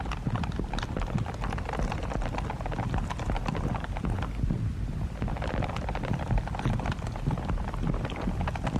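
Digital ripple sound effect: a continuous, dense crackle of many small irregular clicks over a steady low rumble.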